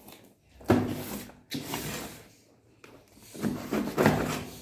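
Cardboard parcel being handled and its packing tape slit with a blade: a sharp knock less than a second in, a shorter one after it, then a longer stretch of scraping near the end.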